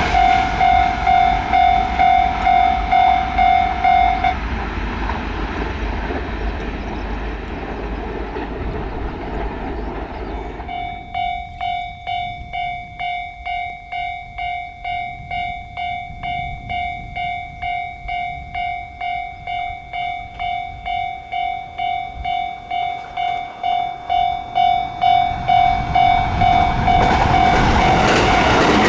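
Japanese level-crossing warning alarm ringing in even pulses, about two a second. It stops about four seconds in while the even rush of a passing train fills the gap, then starts again about eleven seconds in. Near the end a train's noise swells loud over the alarm.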